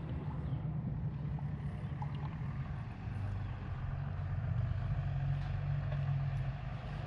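A boat motor running steadily with a low hum, its note shifting slightly about three seconds in.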